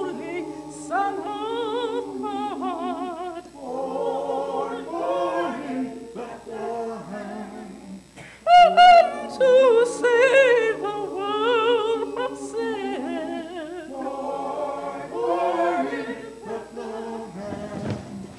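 Church choir singing a cappella, several voices with vibrato, swelling loudest about halfway through.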